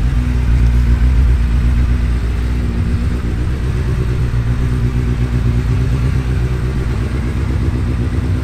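Suzuki Hayabusa GSX1300R's inline-four engine idling steadily.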